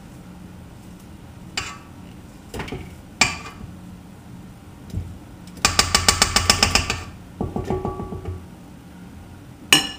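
A spatula scrapes and knocks against a stainless steel stand-mixer bowl and its flat beater, clearing off softened butter. There are a few separate knocks, then a rapid run of taps for about a second, a lighter run of ticks, and one loud knock near the end.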